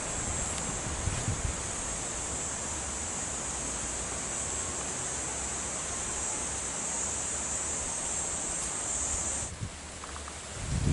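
Insects buzzing steadily at a high pitch, cutting off suddenly near the end.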